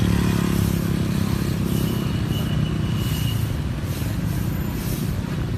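A motor vehicle's engine running close by, its pitch falling during the first second, over a steady street din.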